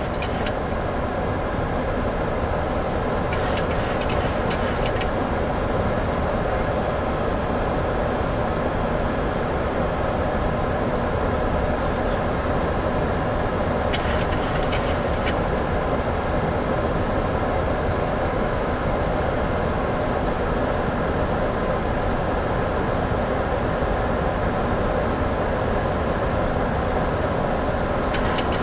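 Steady rushing flight-deck noise of a Boeing 737-800 in flight on approach, airflow and engine noise heard from inside the cockpit. Three short high hissing bursts come through it, about three seconds in, near the middle and at the very end.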